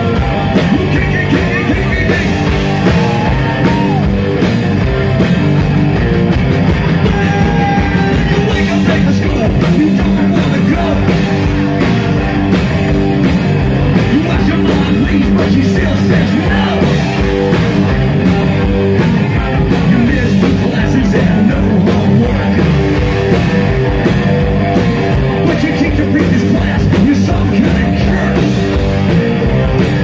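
Live rock band playing loudly: electric guitars and a drum kit with a singer's voice over them.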